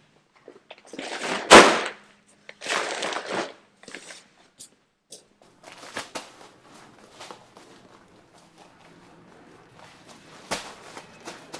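Heavy feed sacks being handled: one slides with a rustle and lands with a heavy thump about a second and a half in, and a second sack rustles as it is shifted just after. Then come scattered faint clicks and knocks, with a sharper knock near the end.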